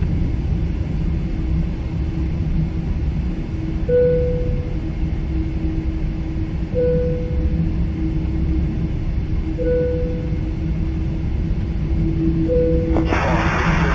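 Steady low rumble inside the cabin of a Boeing 777-300 airliner on the ground before takeoff. A short tone repeats about every three seconds, four times, and a burst of static-like hiss starts near the end.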